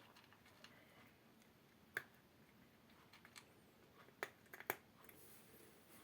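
Near silence: faint room tone broken by sharp clicks, one about two seconds in and a quick cluster of three or four just past four seconds.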